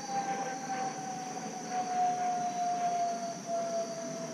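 A distant siren holds one long tone that slowly and steadily falls in pitch. Under it runs a steady high chorus of insects.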